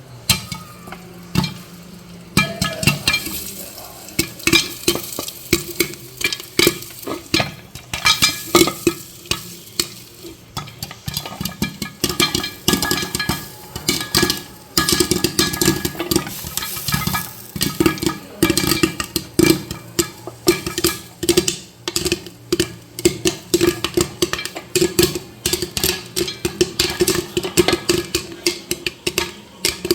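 Popcorn kernels popping in hot oil inside a pressure cooker with its lid laid loosely on top: sharp pops, scattered at first, coming thick and fast from about twelve seconds in.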